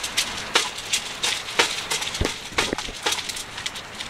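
Dogs eating dry kibble from bowls: irregular crunching and clicking of kibble against the bowls.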